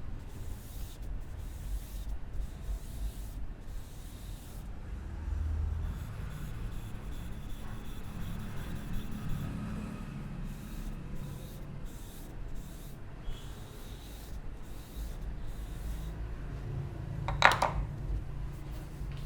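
Close rubbing and scraping of a head massage over the scalp and hair, with a short sharp crack near the end.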